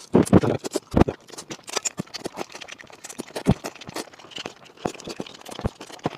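Close-miked eating of bony fish: irregular wet mouth clicks and smacks as meat is chewed and sucked off the small bones, with a few louder thuds and chopstick clicks against a metal bowl.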